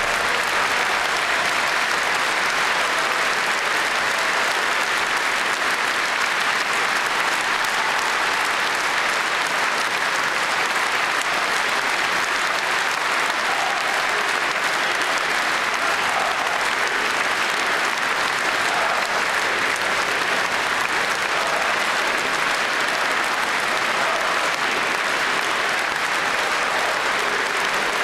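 Large audience applauding in a long, steady ovation of dense clapping that does not let up.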